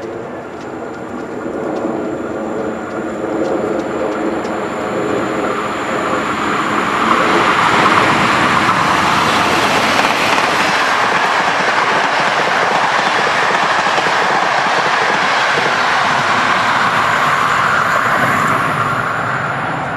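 An ET22 electric locomotive and its train passing close at speed: a steady rush of wheel and rail noise that builds over several seconds and eases near the end. A whine fades out in the first few seconds.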